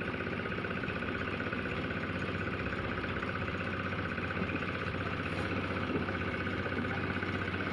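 A motor engine running steadily at a constant speed, with an even hum and no changes in pitch.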